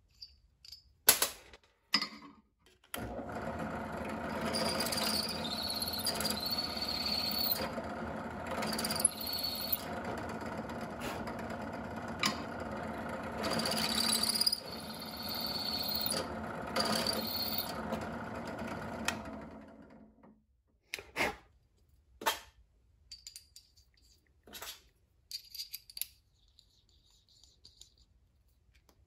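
Bench drill press running for about seventeen seconds as a twist bit cuts into a metal robot weapon bar, with repeated high squeals from the bit in the metal. Light handling clicks and knocks come before it starts and after it winds down.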